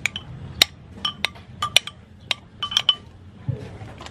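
A metal spoon clinks against the inside of a clay pot while stirring tamarind pulp in water, making about ten sharp, irregular clinks, each with a short ring, over the first three seconds.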